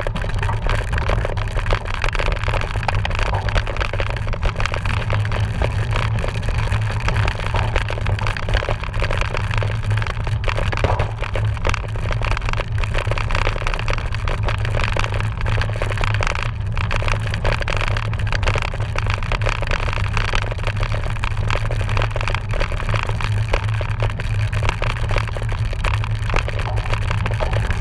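Cyclocross bike riding over rough dirt and grass: steady rolling and wind noise with a low rumble, peppered with small rattles and knocks from the bike.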